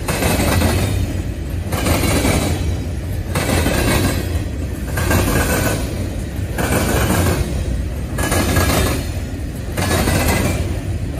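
Freight train of covered hopper cars rolling past close by: a steady low rumble with a clattering of steel wheels on rails that swells and fades about every one and a half seconds.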